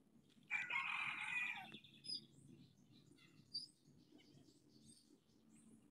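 A rooster crowing once, a single call of about a second and a half starting about half a second in, followed by faint high bird chirps.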